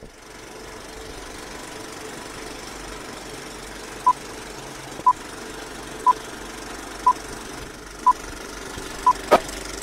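Old-film projector sound effect: a steady mechanical running noise with hiss. About four seconds in, short beeps join it once a second, six in all, like a film countdown, followed by a sharp click near the end.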